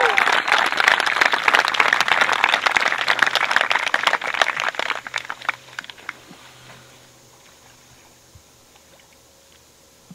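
Crowd clapping, with a last cheering whoop at the very start. The applause thins out and dies away about five to six seconds in.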